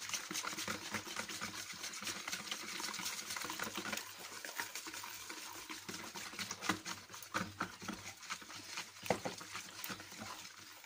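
Hand whisk stirring flour into a runny batter in a plastic bowl, with quick, continuous strokes and a couple of louder clicks in the second half.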